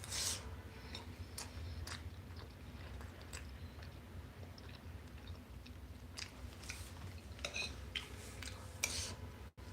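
A person chewing food with the mouth close to the microphone: soft wet smacks and clicks at irregular intervals, some louder near the start and towards the end.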